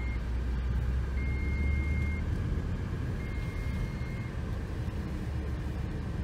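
A vehicle's electronic warning beep sounding over the low rumble of a car rolling slowly on gravel: long, steady, high beeps about a second each, three of them in the first four seconds, then a pause.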